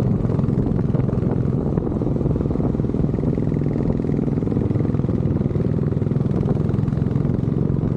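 Royal Enfield motorcycle engine running steadily at an even speed, a dense low sound of rapid exhaust beats.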